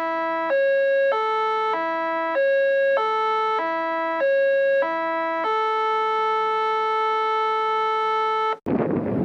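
Electronic chime melody of pure, synthetic tones: a repeating three-note figure stepping about every 0.6 s, ending on one long held note. It cuts off abruptly near the end, where the rumble of a passing train starts.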